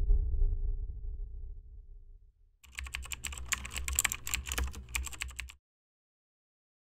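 Typing sound effect: a rapid run of keyboard key clicks lasting about three seconds as text is typed out, then it stops. Before it, a few held music notes fade away.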